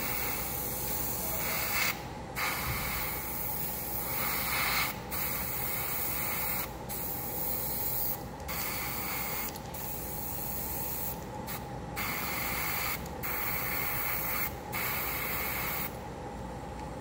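Airbrush spraying black surfacer into a plastic model hull: a steady hiss of air and paint broken by about ten brief pauses as the trigger is let off, stopping near the end. It is shading work, darkening the edges and corners.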